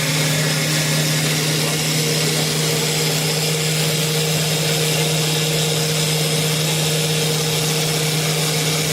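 CNC wood lathe running its automatic turning cycle: a steady motor hum over a hiss, with a higher tone coming in about two seconds in.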